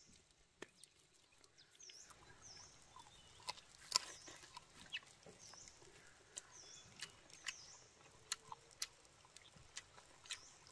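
Faint close-up eating sounds: soft clicks and lip smacks of biting and chewing grilled chicken, one sharper click about four seconds in. Short high chirps repeat irregularly throughout.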